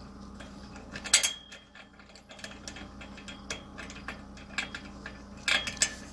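Metal ratchet-strap buckle handled while a strap is threaded through it: sharp metallic clicks and clatter, loudest about a second in and twice near the end, with small scattered ticks between.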